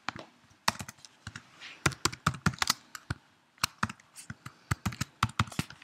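Typing on a computer keyboard: irregular key clicks in short bursts, with a brief pause about halfway through.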